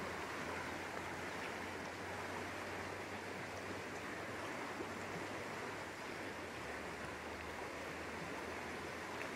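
River current rushing steadily through a shallow riffle, an even hiss of moving water.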